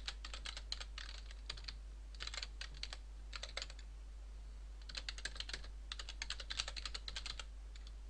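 Computer keyboard typing in quick runs of keystrokes with short gaps, and a longer pause about four seconds in.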